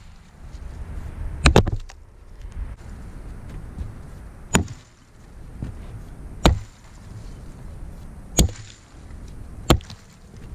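Axe chopping into a downed log lying on snow, bucking it through with a V-notch: about five sharp chops roughly two seconds apart, the first a quick double blow.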